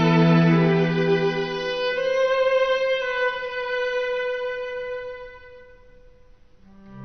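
Slow bowed-string music led by a violin: lower notes give way about two seconds in to one long held high note that fades away near the end.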